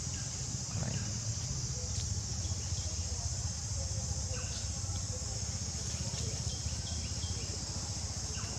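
Steady high-pitched drone of an insect chorus, crickets or cicadas, over a low steady rumble, with scattered short high chirps throughout.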